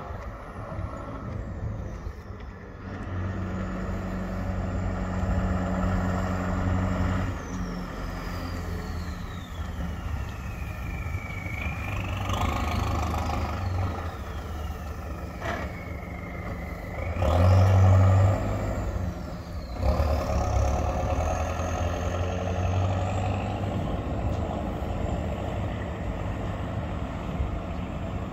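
Polish army Jelcz military truck's diesel engine running and revving, with a high whine that falls and rises in pitch several times. A sharp knock sounds a little past halfway, just before the loudest rev.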